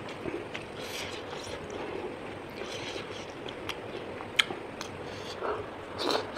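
A person eating: chewing and mouth sounds in a few short soft bursts, with one sharp click past the middle, over a steady background hiss.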